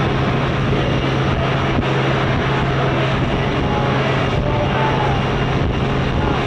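Steady, unbroken drone of airport ramp machinery around a parked airliner, with a constant low hum underneath.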